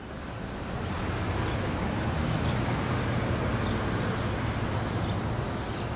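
Street traffic: a steady low rumble of a city bus and passing cars.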